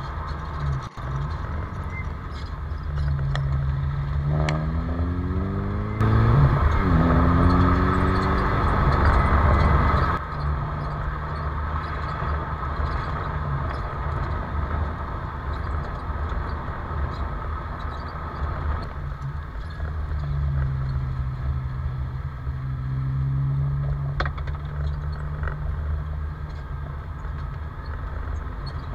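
Alfa Romeo 916 Spider's Twin Spark four-cylinder engine and Cybox exhaust under way, the pitch climbing through the revs twice in the first several seconds, louder for about four seconds, then cruising steadily with road noise. Near the end the revs drop and climb again as it slows and picks up.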